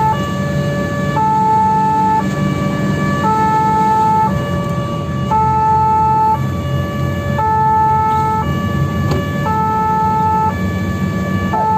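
Fire engine's two-tone siren, switching between a high and a low pitch about once a second, with the truck's engine running underneath, heard from the cab.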